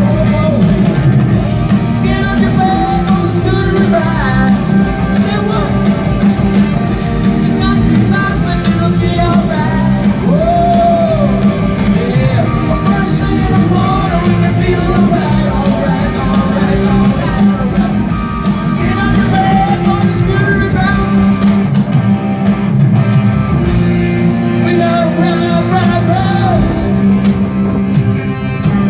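Live rock band playing, with a sung lead vocal over electric guitars.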